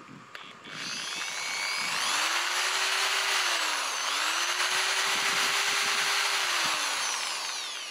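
Ozito 710-watt corded electric drill free-running with no load. It spins up about a second in, slows briefly around the middle, speeds up again, then winds down near the end.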